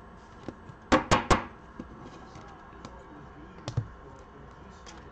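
A trading card in a clear plastic holder being handled and set down: three quick, sharp clicks about a second in, then scattered lighter taps and clicks.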